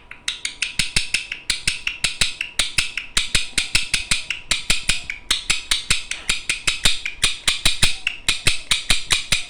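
Pet parrot making a long, fast run of sharp clicks, about six a second, with a few brief breaks.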